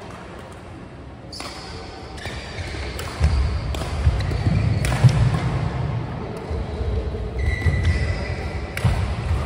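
Badminton rally: a string of sharp racket strikes on the shuttlecock, mixed with players' thudding footsteps and lunges on the court mat, with a brief shoe squeak near the end.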